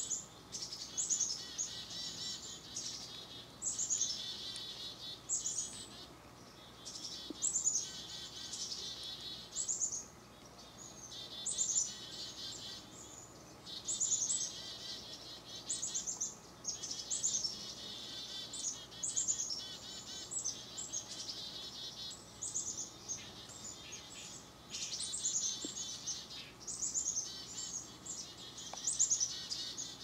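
A foraging flock of black-capped chickadees and red-breasted nuthatches calling. High calls drop in pitch and run into buzzy notes, repeating every second or two and often overlapping.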